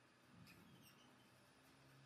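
Near silence: a faint steady low hum with a few faint ticks.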